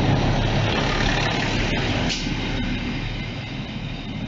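ALn 668 diesel railcar train moving away along the platform: its diesel engines run with a low hum and the wheels clack over rail joints several times in the first half, then the sound fades as the train draws off.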